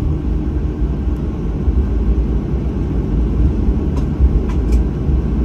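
Jet airliner taxiing, heard inside the passenger cabin: a steady low rumble with a few faint clicks about four seconds in.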